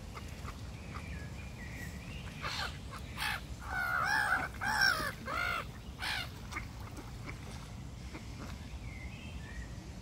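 Black-headed gulls giving a run of harsh, scratchy calls, about half a dozen in under four seconds, starting a couple of seconds in, with a few faint higher chirps before and after.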